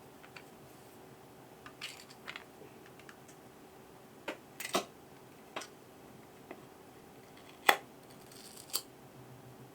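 Scattered sharp clicks and taps of small parts and tools being handled, about eight in all, with the loudest click near the end.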